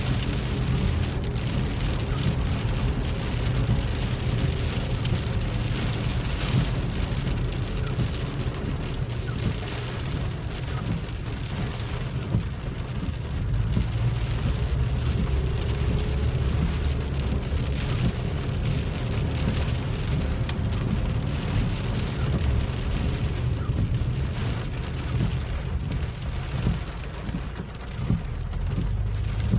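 Rain pattering on a car's roof and windshield, heard from inside the cabin, over a steady low rumble of the engine and tyres on the wet road.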